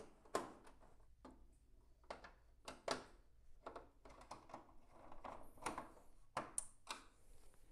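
Light, irregular clicks and knocks of a screwdriver working the fasteners on a Concept2 SkiErg's plastic flywheel cover, over faint handling rustle.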